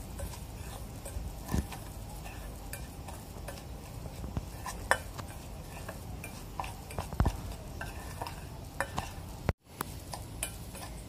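A steel spoon stirring a dry rice-flour and semolina mix in a stainless steel bowl: soft scraping with scattered light clinks of spoon on bowl. The sound drops out briefly near the end.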